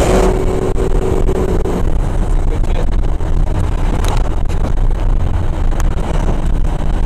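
The 6.0 Power Stroke V8 turbodiesel of a straight-piped Ford Super Duty pickup running at road speed, heard from inside the cab as a steady low drone with road noise. A faint steady tone sits over it for the first couple of seconds.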